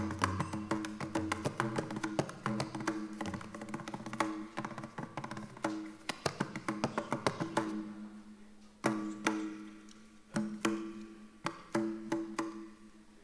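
Tabla played solo: a fast run of crisp strokes on the tuned right-hand drum, each ringing at the same pitch, with deep bass strokes from the left-hand drum in the first few seconds. About seven and a half seconds in the playing thins to a few single ringing strokes roughly a second and a half apart, fading out.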